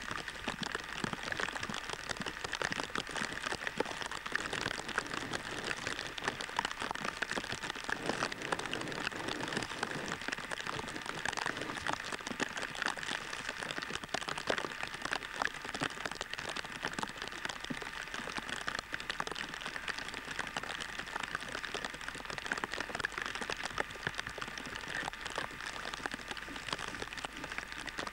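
Steady rain falling, a dense patter of small drops with no letup.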